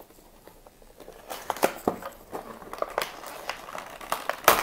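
Clear plastic blister packaging of a toy pack being handled and pried open, crinkling and crackling in a run of irregular sharp clicks that starts about a second in, with a loud crack near the end.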